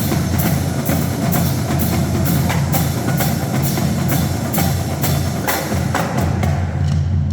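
A marching drumline playing, with sharp snare and drum strokes about three a second over a steady low bass-drum pulse. The high, crisp hits thin out near the end.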